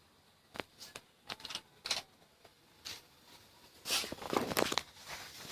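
Small clicks and knocks of refrigerant hoses, brass fittings and valves being handled and fitted, with a busier clatter and rustle about four seconds in.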